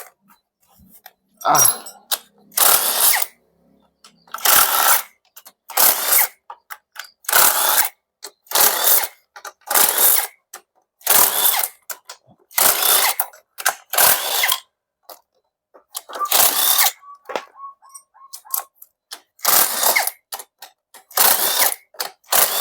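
Socket wrench working bolts on a Yamaha Mio J scooter in short, regular bursts, about one every second and a half, with a brief gap near the end, as the scooter is taken apart.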